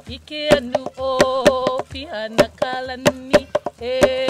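Hawaiian chant sung by a woman in long held notes, over regular sharp strikes of an ipu heke double-gourd drum.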